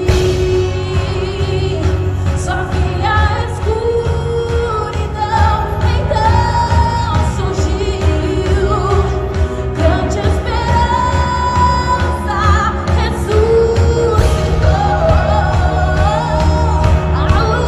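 Christian worship song: a singer's melody carried over a full band with heavy bass and drums.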